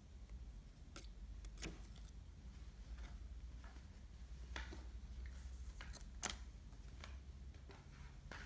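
Quiet room tone with a steady low hum, broken by a few faint, short clicks and knocks.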